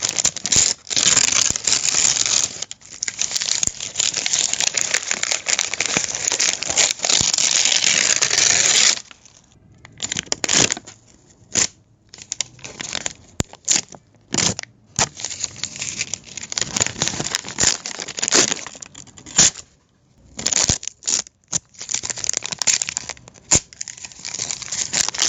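Paper being crumpled and crinkled by hand: dense, continuous crackling for about nine seconds, then sparser, separate crinkles and short rustles with brief gaps.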